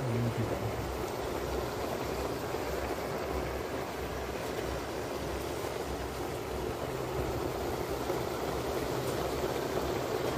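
A pot of hare stew cooking on the heat: a steady bubbling hiss.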